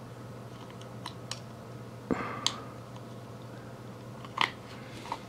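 Hard plastic clicks and handling noise as hands work the backpack of a 1/6 scale action figure: a few scattered clicks and a short scrape about two seconds in.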